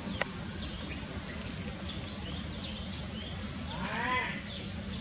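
Steady outdoor background noise with one short long-tailed macaque call about four seconds in, a cry that rises and then falls in pitch.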